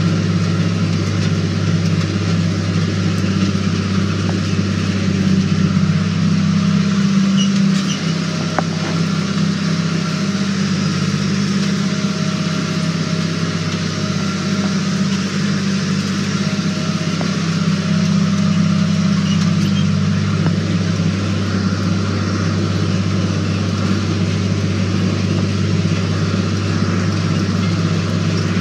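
Tractor diesel engine running steadily under load while pulling a field cultivator through dry soil, heard from inside the cab.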